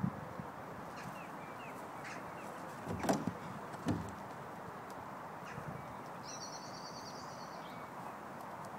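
A horse's hooves thudding twice on turf, about three and four seconds in, over a steady outdoor hiss. Small birds chirp faintly, with a short high trill a little past halfway.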